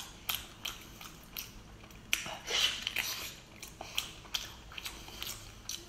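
Close-miked chewing of a thick mouthful of salmon: wet mouth smacks and clicks at irregular intervals, several to the second.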